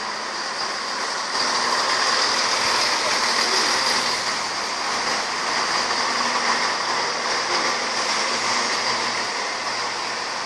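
ScotRail Class 170 Turbostar diesel multiple unit running past close by as it pulls into the platform, a steady mix of underfloor diesel engine and wheels on the rails that gets louder about a second and a half in.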